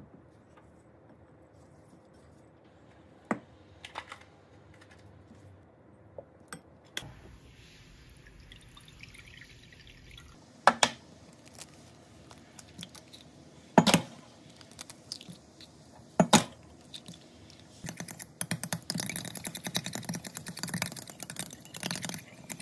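Kitchen food-prep sounds: a few light clicks and a soft pour, then three sharp taps of eggs cracked against the rim of a glass measuring cup. Near the end come quick, rapid clinks of the eggs being beaten with a utensil in the glass cup.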